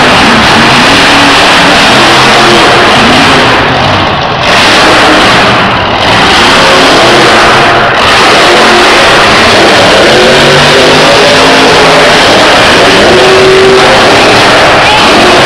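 Grave Digger monster truck's engine, very loud, revving up and down as the truck drives across the arena dirt.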